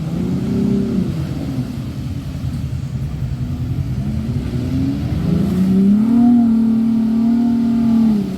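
Off-road vehicle engine revving. Its pitch climbs about four seconds in, holds high for a couple of seconds, then drops off abruptly near the end.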